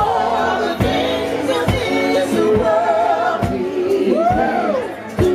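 Live band music: a singer's melody, swooping up and down about four seconds in, over a steady drum beat.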